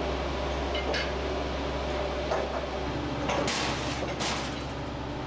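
Heavy construction machinery engine running steadily with a low hum, with a few short hissing bursts about three and a half to four seconds in.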